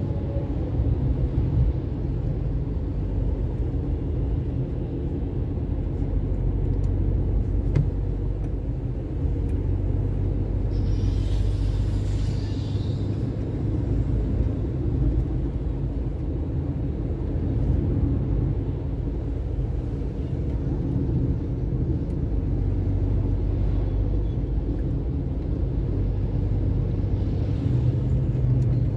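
Steady engine hum and road rumble of a vehicle travelling along a road. About eleven seconds in, a brief hiss lasting about two seconds rises over it.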